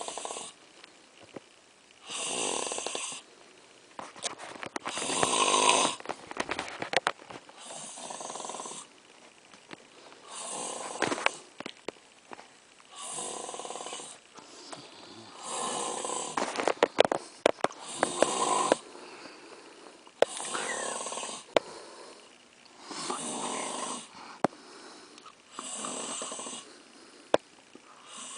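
A man snoring in his sleep, one snore about every two and a half seconds, each lasting about a second. Scattered sharp clicks come between some of the snores.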